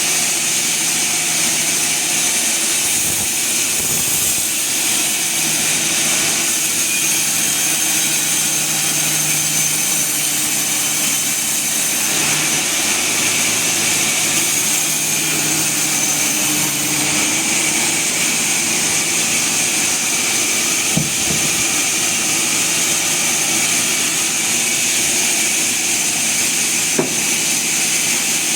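Sawmill machinery running steadily: a continuous mechanical noise with a low wavering hum, and a sharp click near the end.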